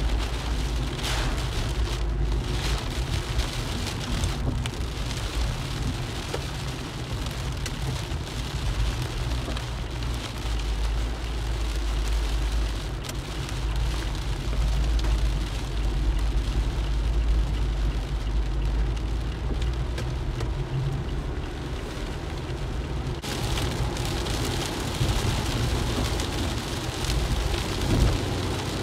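Rain on a moving car heard from inside the cabin: an even hiss of rain and wet-road tyre noise over a steady low road rumble. The hiss grows louder about 23 seconds in.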